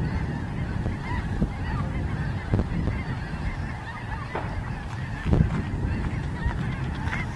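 A large flock of geese and ducks on the bay calling continuously, with many overlapping honks over a steady low rumble. A short thump sounds a little past five seconds in.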